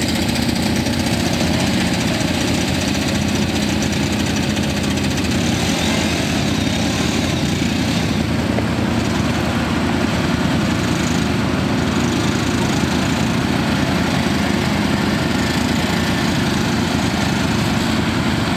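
ATV (quad bike) engines running steadily while a quad stuck in a muddy ditch is towed out on a strap.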